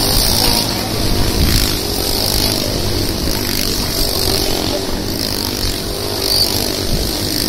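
Motorcycle engines running inside a steel-mesh globe of death as the riders circle the cage, a steady, loud engine noise.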